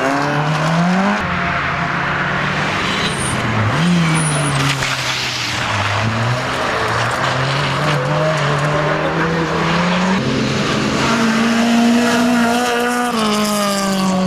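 Rally car engine at high revs, its pitch repeatedly climbing and then dropping sharply as it shifts gear and lifts off the throttle, over a steady hiss of noise.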